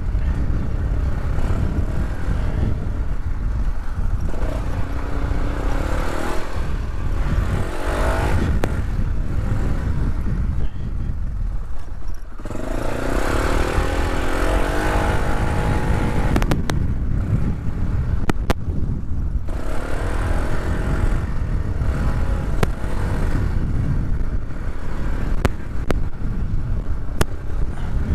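Polaris off-road vehicle's engine running under way, its engine speed rising and falling as it is throttled, over a heavy low rumble. A few sharp knocks come about two-thirds of the way in.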